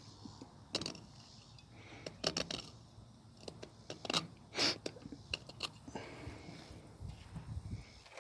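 Fillet knife scraping and clicking as it cuts through a spotted bass along the bones, in short irregular strokes, with a brief low rumble near the end.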